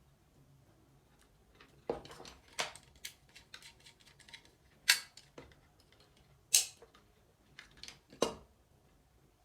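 Sharp clicks and small knocks from light-switch and wiring parts being handled: five louder clicks a second or two apart, with lighter ticks between.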